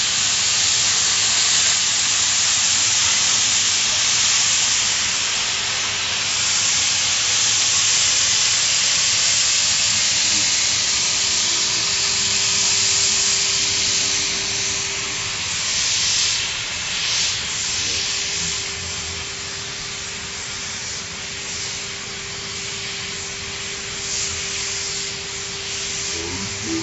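CNC profile cutter's oxy-fuel torch cutting steel plate, a loud steady hiss of the cutting gas jet blowing through the kerf. A faint steady hum joins about eleven seconds in, and the hiss eases slightly about sixteen seconds in.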